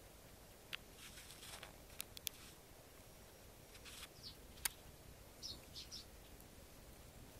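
Eurasian tree sparrows giving a few short, faint chirps, mostly in the second half, with several sharp little ticks among them.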